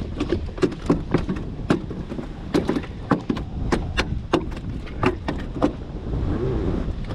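Wind buffeting the microphone, with a string of irregular sharp clicks and knocks from handling a caught redear sunfish (shellcracker) to unhook it.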